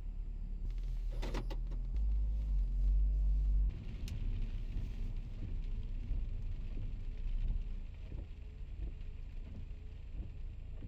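Car interior noise: a steady low rumble of engine and road heard inside the cabin. A short sharp sound comes about a second in, and the sound changes abruptly a little after three and a half seconds, with faint regular ticks in the drone after that.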